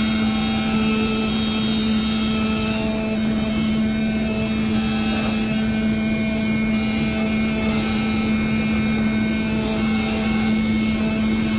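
CNC oscillating knife cutter running as its vibrating blade cuts KT foam board: a steady, even hum with one strong low tone, and fainter higher tones coming and going.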